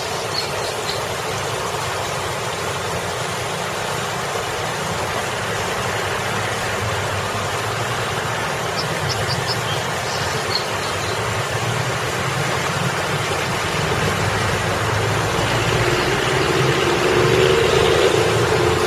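Water splashing steadily over a boulder fountain, mixed with the low rumble of road traffic. A vehicle passing close grows louder near the end.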